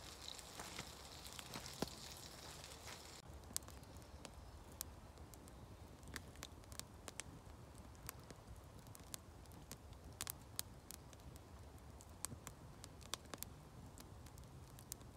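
Campfire crackling, with scattered sharp pops at irregular intervals. A faint hiss over the first three seconds cuts off suddenly.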